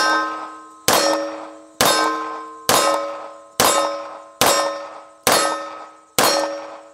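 A 9mm CZ P-01 pistol fired at a steady pace, about one shot a second, eight times. Each sharp crack is followed by the ringing clang of a steel target that fades before the next shot.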